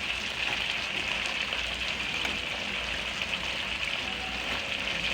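Pot of chicken in tomato sauce sizzling steadily over the heat, a dense fine crackle, with potatoes and carrots just added.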